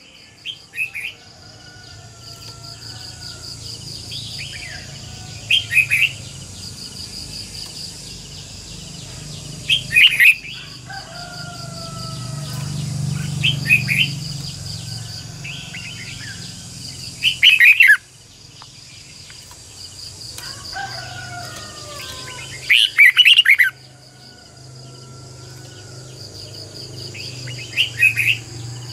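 Red-whiskered bulbul singing: loud, short, rapid song phrases about every four to five seconds, with softer whistled notes between them, over a steady high buzz.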